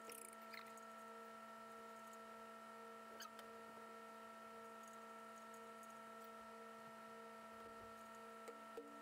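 Near silence: a steady electrical hum, with a few faint clicks of hand tools being handled, one about three seconds in and a couple near the end.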